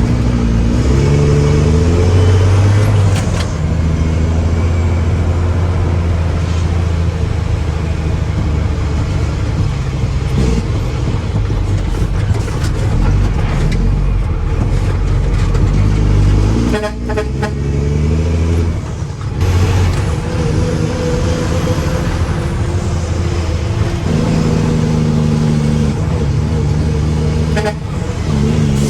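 Mack truck's diesel engine running and revving up and down several times while offloading a load of granite.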